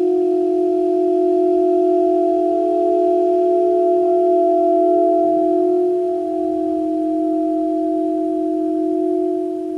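Saxophone and live electronics holding a steady, pure-sounding chord of several sustained pitches, unbroken throughout and easing off slightly near the end.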